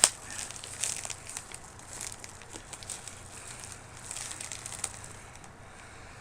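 Crinkling and rustling of packaging being handled while a box is opened, with a sharp click right at the start; the handling dies down near the end.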